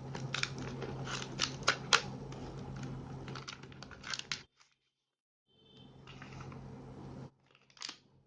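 A fidget spinner's retail packaging being opened by hand: crinkling, tearing and sharp clicks for about four seconds. The sound drops out completely for about a second, then comes back faint, with one more short rustle near the end.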